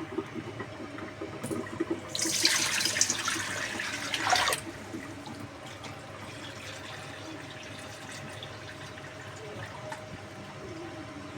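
Water running for about two and a half seconds, starting about two seconds in and cutting off sharply. A softer steady hiss carries on after it.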